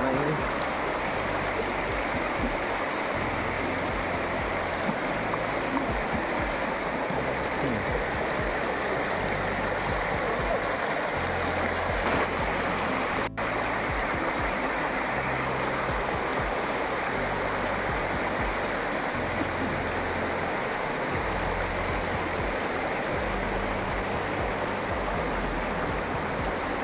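Steady rushing of flowing water, an even wash of noise that does not change, with a momentary break about 13 seconds in.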